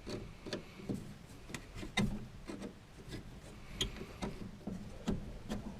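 Hands and tools working at the water heater's hose connections: irregular light clicks, knocks and rubbing, with a sharper knock about two seconds in.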